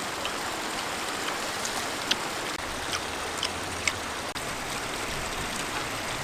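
Steady rush of running water, with a few sharp clicks scattered through.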